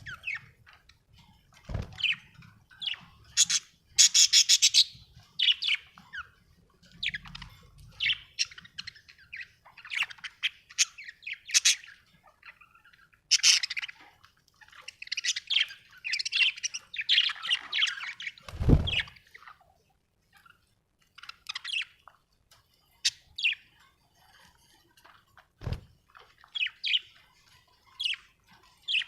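Budgerigar chirping and chattering in quick, high calls, with a dense warbling run about four seconds in and a longer stretch of chatter around the middle, then sparser calls toward the end. A few brief low thumps, the loudest about two-thirds of the way through.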